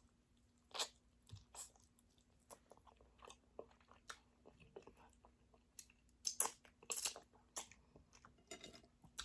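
Close-up chewing and biting of chicken wings: irregular crunches and mouth clicks, busiest about six to seven seconds in, over a faint steady hum.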